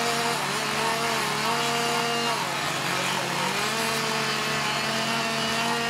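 Cordless Milwaukee M18 power tool working the wood of a carved pole, its motor whine dipping in pitch as it bites in and rising again as it is eased off, several times, over a steady low hum.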